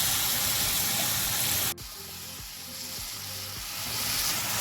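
Chicken pieces sizzling as they fry in oil and butter in a pan. About two seconds in the sizzle drops sharply quieter, then slowly builds back up.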